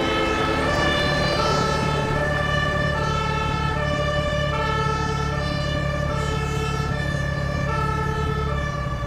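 Ambulance's two-tone siren wailing, alternating between a high and a low note, each held about three-quarters of a second, over a steady low rumble.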